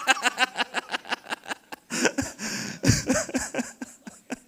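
A man laughing heartily into a handheld microphone: a quick run of laughs through the first couple of seconds, then sparser ones.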